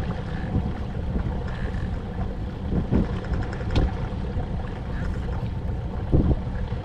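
Boat on the water: a steady low hum and rumble with wind on the microphone, and a few short knocks.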